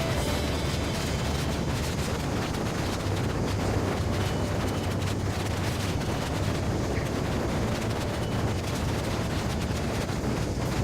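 Strong wind buffeting the microphone in a 7-8 Beaufort blow on a sailboat, a steady loud rushing with a low rumble.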